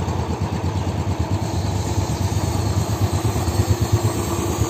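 Royal Enfield single-cylinder motorcycle engine idling with a steady, even beat.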